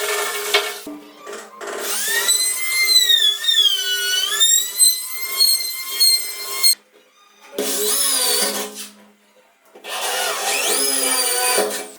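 Power drill boring into wood in three bouts, its bit squealing at a high pitch that bends up and down as the pressure changes.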